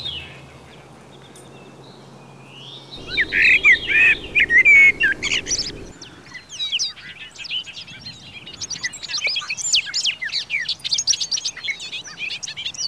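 Birds chirping: after about three seconds of faint low hum, a few loud chirps, then a dense run of quick, high chirps.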